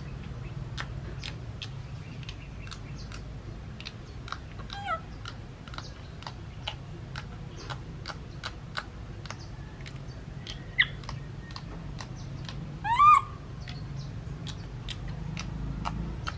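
A few short, high animal calls: one falling call about five seconds in, a brief chirp a little before the loudest call, and a louder arched call that rises then falls in pitch about thirteen seconds in. Underneath runs a steady low hum and a string of sharp clicks at about two or three a second.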